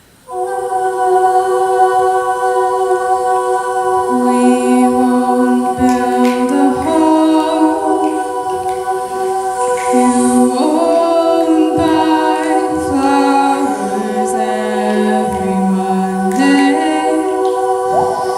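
An a cappella group singing a wordless opening: several voices come in together on a sustained chord, and about four seconds in a lower voice joins with a line that steps between notes beneath it.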